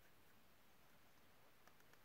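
Near silence, with a few faint clicks about three-quarters of the way through.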